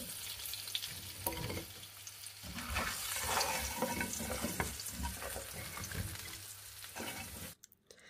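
Hot oil sizzling in a frying pan of fried chestnuts, with scattered light clicks and knocks as the chestnuts are scooped out with a slotted spoon. The sound cuts off abruptly shortly before the end.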